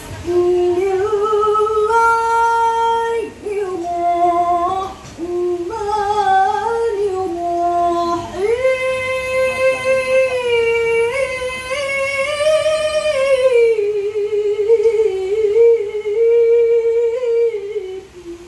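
A woman reciting the Quran in the melodic tilawah style, with long held notes and ornamented turns, heard through a microphone and loudspeakers. She recites several short phrases with brief breaths between them, then one long phrase of about ten seconds that climbs and then falls back.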